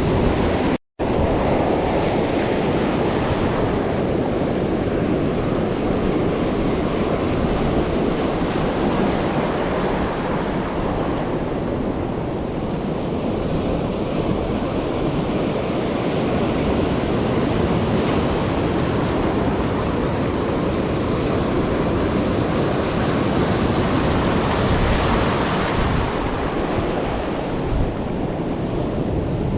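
Sea waves washing in steadily, with wind buffeting the microphone. The sound cuts out completely for a split second about a second in.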